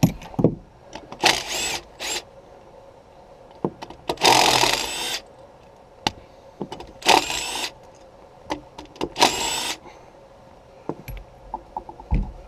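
A hand-held power tool run in four short bursts of about half a second to a second each, working on the bolts of a seized water pump on a small-block Chevy 350 marine engine. Light metallic clicks and knocks come between the bursts.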